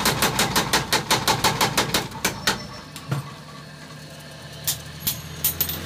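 Blacksmith's hammer striking iron on an anvil in a fast run of blows, about seven a second, for two and a half seconds, then a few scattered strikes. A steady low hum runs underneath.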